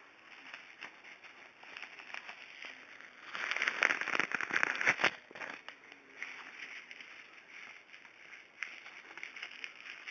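Packaging being unwrapped by hand, a run of crinkling and crackling with many small clicks, loudest for a couple of seconds about three and a half seconds in.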